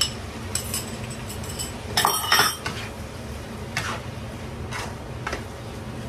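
A spatula stirring and scraping in a wok of stir-fried vegetables and egg, clinking against the pan with scattered sharp knocks and a louder clatter about two seconds in, over a steady low hum.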